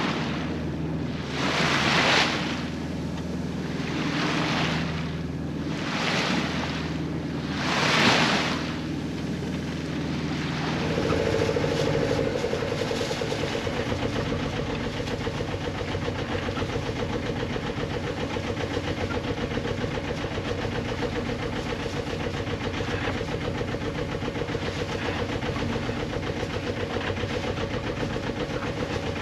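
Sailboat's inboard engine running steadily under way in flat calm, at first low under four swishes of water along the hull about two seconds apart; about eleven seconds in the engine drone becomes the main sound, steady with a fast even pulsing beat.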